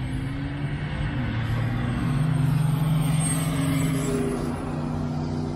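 Diesel big-rig truck engine running hard down a drag strip. Its note dips about two seconds in, then holds steady and louder.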